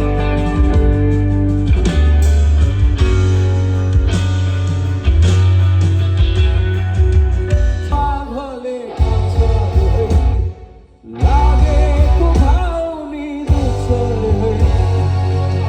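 Rock band playing at a sound check: heavy bass and drums with guitar, and a singer's voice coming in about halfway. The music drops out briefly about two-thirds of the way through, then picks up again.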